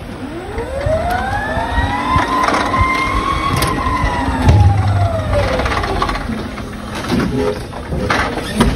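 Forklift carrying a pallet into a truck trailer: its drive motor whines, rising in pitch as it speeds up and falling away as it slows. A few clunks come through, the heaviest about halfway through.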